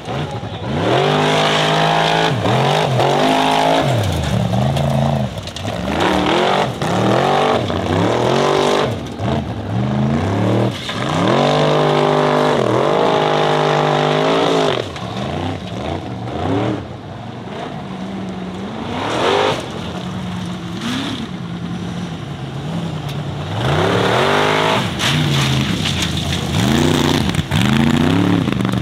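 Formula Offroad buggy's engine revving hard and repeatedly under full load on a steep loose-dirt climb, the pitch surging up and dropping back every second or two as the throttle is worked.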